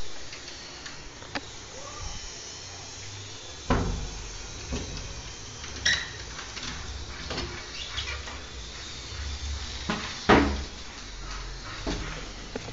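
A door being opened by its handle: scattered clicks and knocks from the handle and latch, the loudest about ten seconds in.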